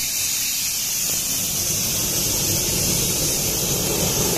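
Steady hiss of compressed air from a blow gun on an INGCO ACS224501 oil-free air compressor's hose, blasting into a burning wood fire, with a low rumble underneath.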